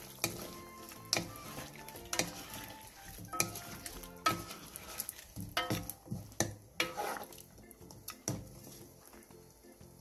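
Two wooden spatulas stirring braised duck pieces and vegetables in a frying pan, with irregular knocks and scrapes against the pan over the sizzle of the simmering sauce. The knocks are loudest about four seconds in and thin out after about eight seconds.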